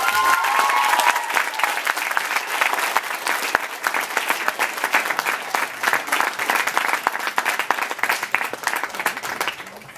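An audience clapping, a dense patter of many hands, thinning out near the end. A held tone from the last of the song dies away in the first second.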